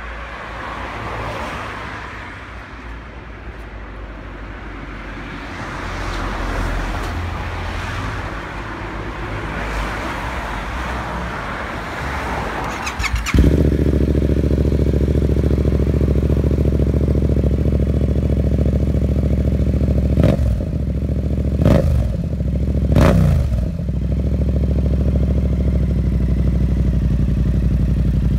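Yamaha MT-07's parallel-twin engine, breathing through an SC-Project S1 slip-on silencer, starts up suddenly about halfway in after a stretch of faint background noise. It settles into a steady idle, is blipped three times in quick succession with the revs rising and falling, then idles again.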